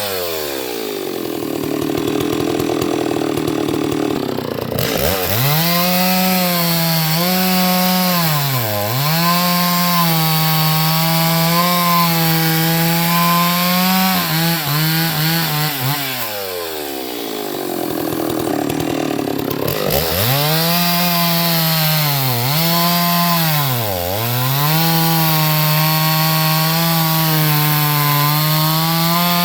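Two-stroke chainsaw cutting pine wood in two long cuts. Each cut begins as the engine revs up, holds a steady high pitch that dips briefly a couple of times under the load, then the revs drop back toward idle between cuts.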